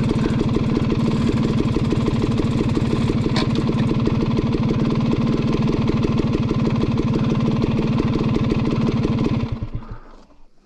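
Dirt bike engine idling steadily close by, with an even, rapid pulse. It cuts off suddenly about nine and a half seconds in.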